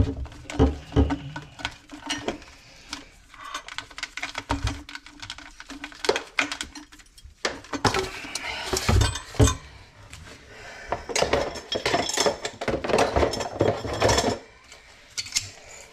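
Repeated clinks, knocks and clatter of tools and garbage disposal parts being handled, with a denser stretch of rustling and scraping about halfway through.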